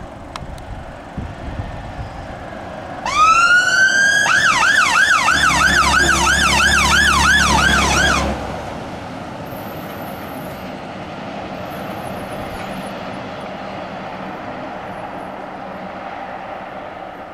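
Fire engine siren switching on with one rising wail, then a fast yelp for about four seconds before cutting off abruptly. The appliance's engine and tyre noise runs underneath and carries on after the siren stops.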